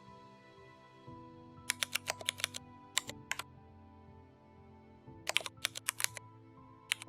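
Computer keyboard typing in quick bursts of keystrokes with pauses between them, over soft background music.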